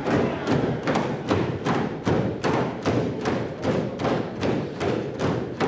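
A group of people stamping their feet in unison on a wooden stage floor, a steady beat of thuds about three times a second.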